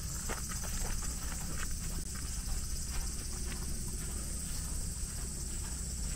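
Footsteps on a hard path, a few irregular steps a second, over a steady high hiss.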